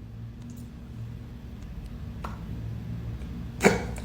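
A single loud, sharp hiccup near the end, trailing off into breath, over a low steady room hum.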